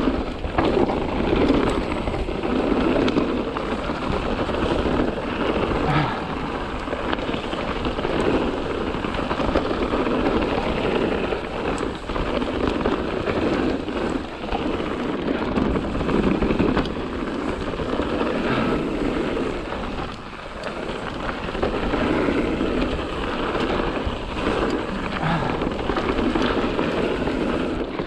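Mountain bike riding a rough trail: a continuous rushing of tyres rolling over gravel and rock, broken by many small knocks and rattles from the bike.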